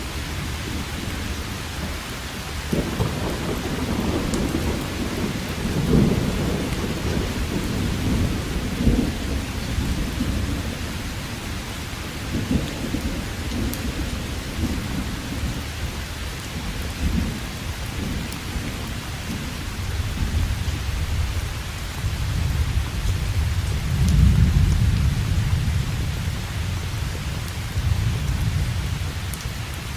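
Steady rain with rolling thunder: a long low rumble sets in about three seconds in, with louder surges, and a second rumble swells up in the last third before fading.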